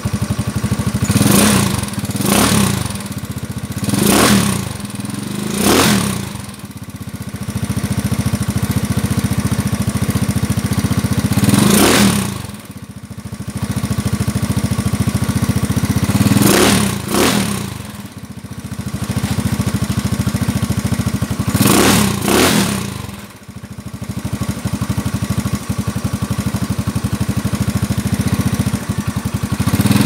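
Yamaha Mio scooter's single-cylinder four-stroke engine, bored out with a 59 mm block and breathing through an Apido aftermarket exhaust, idling and being blipped on the throttle. Several quick revs come close together in the first six seconds, then one about every five seconds, each rising and falling back to idle.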